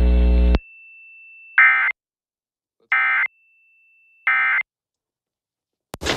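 Emergency Alert System end-of-message code: three short bursts of screeching digital data tones about 1.3 seconds apart, marking the end of the required monthly test. A steady hum cuts off about half a second in, and a different noisy sound starts right at the end.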